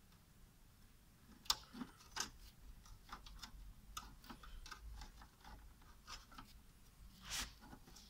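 Faint scattered clicks and light knocks of fingers handling a Dell desktop's plastic and metal chassis parts while working the system fan's rubber mounting pins through their holes. A louder short scrape comes near the end.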